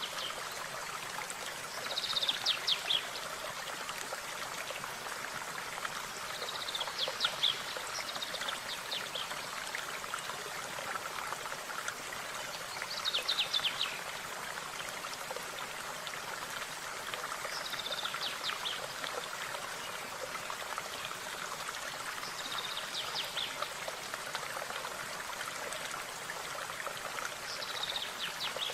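A stream running steadily, with a small songbird singing a short phrase of quick high notes about every five seconds.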